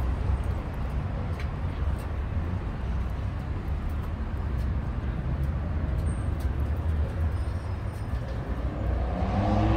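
Steady low rumble of city traffic noise, with a pitched sound rising in near the end.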